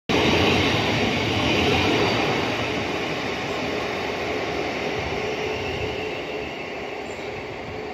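Electric passenger train running on the track: a steady rail rumble that is loudest at the start and slowly fades, with a faint steady whine in the second half.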